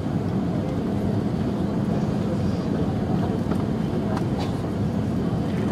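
Steady cabin noise inside an Airbus A380 on final approach: a low, even rumble of airflow and engines, with a few faint clicks.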